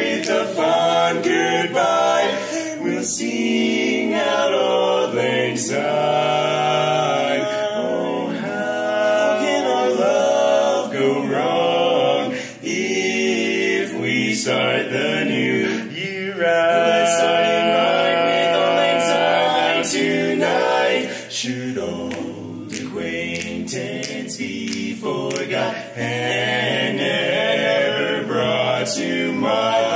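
Barbershop quartet singing a cappella in four-part harmony, holding and moving through chords, with a softer passage a little past halfway.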